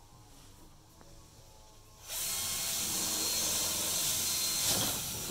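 Cordless drill starting about two seconds in and running steadily against the plywood hull panel for about three seconds, then stopping.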